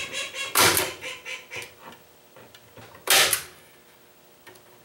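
Heavy-duty hand staple gun fired twice, about two and a half seconds apart, each a sharp snap as a staple is driven through wire mesh into the wooden box.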